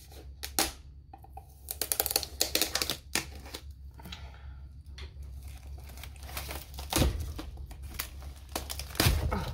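Plastic shrink wrap on a cardboard box being opened, crackling and crinkling in short irregular bursts. A couple of dull knocks come near the end as the box is handled.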